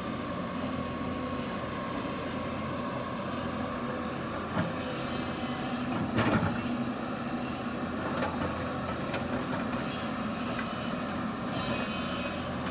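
Hydraulic excavator's diesel engine running steadily under work, with a few knocks from the machine, the loudest about six seconds in.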